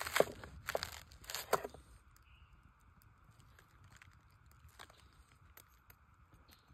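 A knife crunching through a raw head of cabbage, a few cutting strokes in the first two seconds, followed by a few faint clicks.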